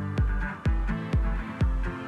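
Electronic dance music with a steady kick drum about twice a second under sustained synth tones.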